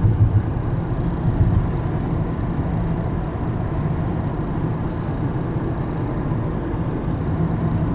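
Steady low rumble of road noise inside a moving car, with a few louder bumps in the first second and a half.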